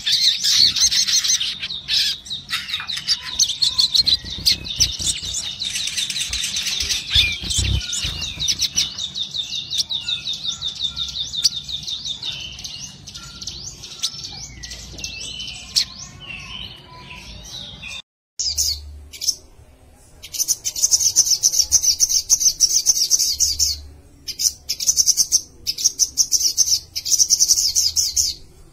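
Male olive-backed sunbird singing in fast, high trills. The trills are dense at first, then thin to scattered calls. After a short break they come back as repeated bursts, each a second or two long.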